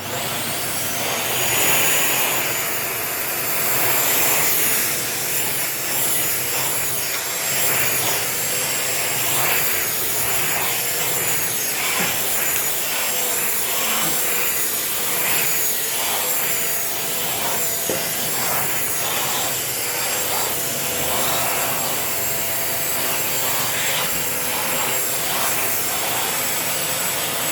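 Dyson Ball Animal upright vacuum cleaner switched on and running: a steady motor whine with a slightly wavering high pitch over rushing suction noise, the air noise surging briefly again and again.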